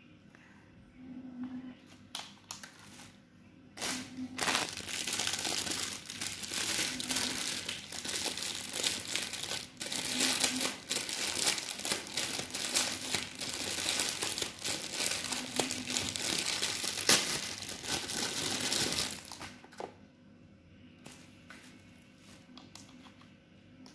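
Plastic packaging crinkling and crackling as it is handled and squeezed, a dense run of small crackles that starts about four seconds in and stops a few seconds before the end.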